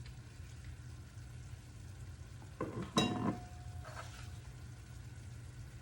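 Food frying and sizzling in a pan just after soy sauce is added, stirred with a wooden spoon, with a louder scrape of the spoon about halfway through.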